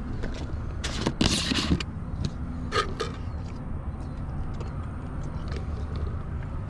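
Wind buffeting the microphone in a steady low rumble, with a few short rustles and clicks about a second in and again near three seconds.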